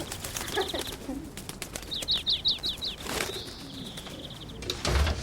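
A bird calling: a quick run of about six high, falling chirps, followed by a thin high note held for a second or so. A low thump sounds near the end.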